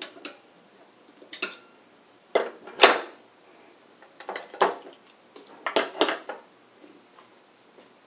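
Steel pliers clinking and clacking against a steel rain-tight EMT connector and box in several clusters of short metallic clicks, the loudest about three seconds in, as the locking pliers and the second pair of pliers come off the tightened fitting and are set down.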